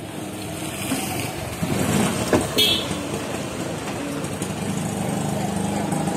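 Street traffic: motorcycle engines passing, and a larger vehicle's engine running close by, growing louder toward the end. A short, high-pitched horn beep sounds about two and a half seconds in.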